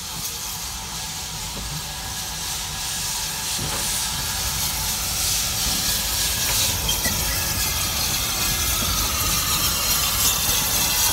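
Small industrial saddle-tank steam locomotive, NCB No 10, moving off with its train, steam hissing steadily. It grows louder as the engine draws past.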